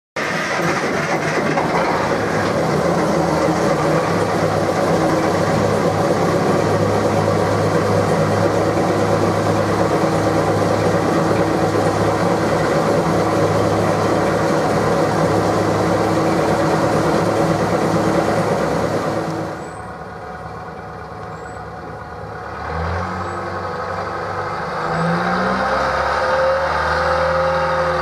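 Diesel engine of a small NZR Tr-class shunting locomotive running steadily and loudly. About two-thirds of the way in the sound drops to a quieter level, then the engine revs in a couple of rising and falling surges.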